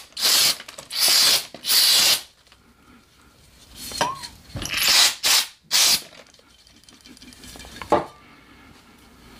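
Gun Scrubber aerosol firearm cleaner sprayed in short hissing bursts onto pistol parts to strip out grease: three quick blasts, then two more after a pause. A single sharp knock comes near the end.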